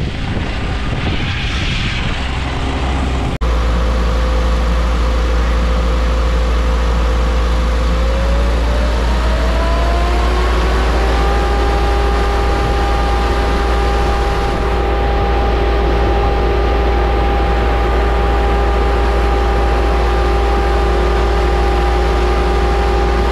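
Diesel engines of a concrete pump and ready-mix truck running steadily at the pump's hopper while concrete is discharged. The engine revs climb between about eight and eleven seconds in, then hold at the higher pitch. A few seconds of rougher job-site noise come before a sudden cut to the steady engine drone.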